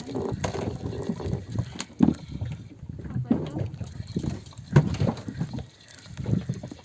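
Water sloshing and splashing irregularly, with a couple of sharper splashes.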